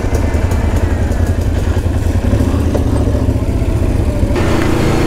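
ATV engine running steadily while riding on a trail. About four seconds in the sound changes suddenly, with a higher engine note and more hiss.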